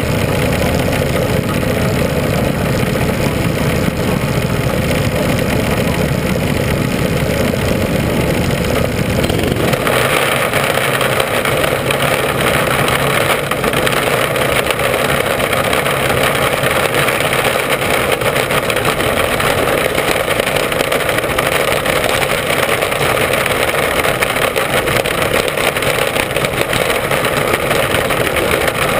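Mini sprint race car's engine running hard, heard from the onboard camera with wind and wet-track noise. About ten seconds in, the deep low rumble drops away abruptly and the sound turns harsher and higher.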